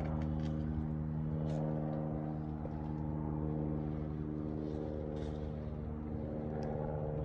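A motor running steadily at one even pitch, a constant mechanical hum, with a few faint clicks over it.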